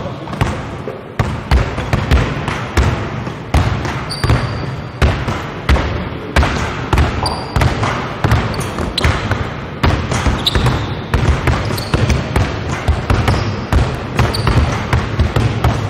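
Several basketballs bouncing on a hardwood gym floor at once in an irregular patter of knocks, several a second, mixed with balls tapped against a glass backboard during a dribble-and-backboard-tap drill.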